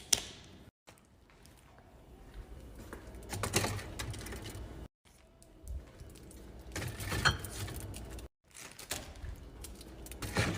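Small cardboard juice boxes being handled and set into a plastic fridge bin: scattered light taps, knocks and clatter in short bursts.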